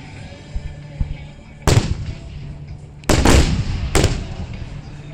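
Aerial firework shells bursting with sharp bangs that echo away. One comes a bit over a second and a half in, then three in quick succession around three to four seconds in.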